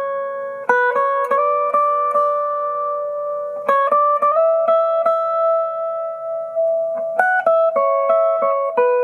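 1968 Guild X175 Manhattan archtop guitar played with a pick: three short runs of picked notes, about a second in, near the middle and near the end, with chords left to ring for a few seconds between them.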